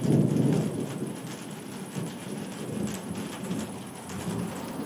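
Thunder rumbling over steady rain: a loud rumble breaks in suddenly at the start and dies away over a couple of seconds, with a smaller swell about two seconds in.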